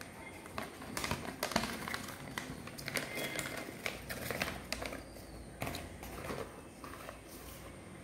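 A large printed paper instruction sheet being handled and folded up, the paper rustling and crinkling in a run of sharp crackles that thin out over the last second or so.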